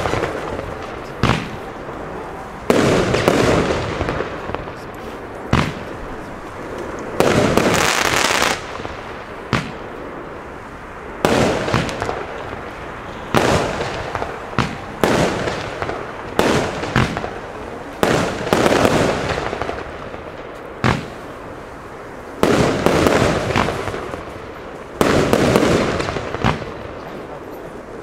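Funke Nightfall firework battery firing shot after shot, roughly every one to two seconds. Each shot is a sudden bang followed by about a second of trailing noise as the shell bursts into stars.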